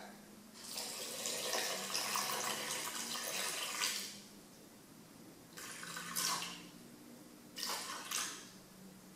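Water poured from a measuring jug into a saucepan of granulated sugar: one long pour of about three seconds, then two short splashes near the middle and near the end as the last of the jug is tipped in.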